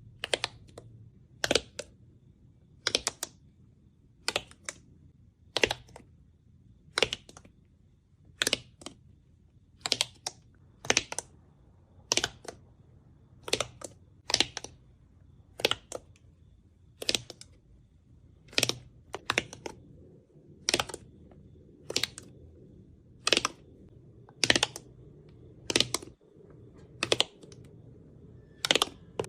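Slime being pressed and squeezed by hand, giving short crisp clicking pops about once every second and a half, some coming in quick pairs.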